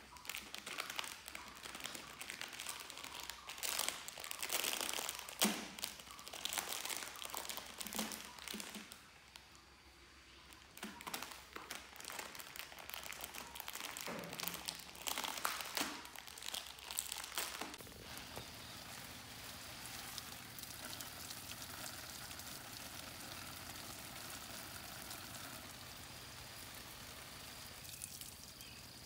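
Crinkling and crackling of handled plastic wrapping in irregular bursts over the first eighteen seconds or so, then a faint steady hiss.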